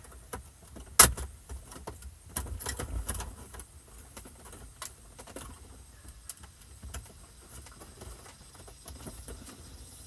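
Plastic wiring-harness connectors and loose wires clicking and rattling as a car stereo head unit is handled and its clips are pushed together. There is one sharp click about a second in, then a short burst of clattering.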